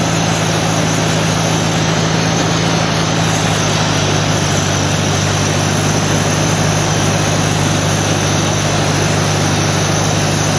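Ford 641 tractor's four-cylinder engine running on wood gas from a front-mounted gasifier, pulling steadily along in gear. The engine note holds steady and drops slightly in pitch a few seconds in.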